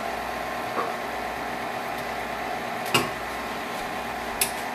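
Electric stand mixer motor running steadily while it mixes bread dough, a constant hum, with a couple of light clicks about three seconds in and near the end.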